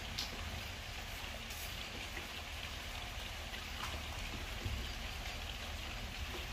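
Steady background noise: an even hiss over a low rumble, with a few faint ticks.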